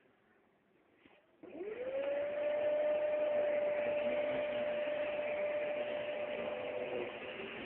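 Kenmore Progressive vacuum cleaner switched on about one and a half seconds in. Its motor spins up within half a second to a steady whine over rushing air, and keeps running.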